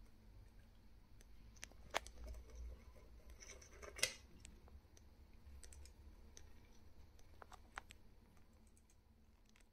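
Near silence broken by scattered faint clicks and scratches. Two sharper clicks come about two and four seconds in, with a brief scratching just before the second.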